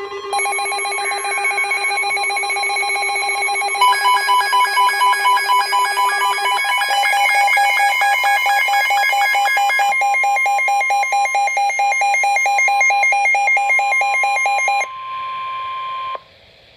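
Weather-radio emergency alert tones announcing a severe thunderstorm warning. A steady alarm tone near 1 kHz runs under several layered, rapidly pulsing electronic beeps. More beep layers join about four seconds in and shift twice after that. The beeping stops about fifteen seconds in, and the steady tone cuts off a second later.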